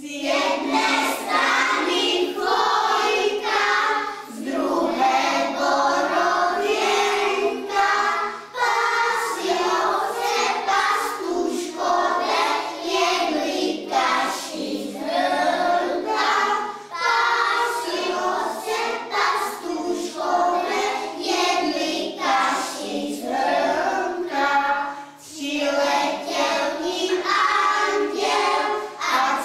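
A group of young children singing a song together, phrase after phrase with brief pauses for breath.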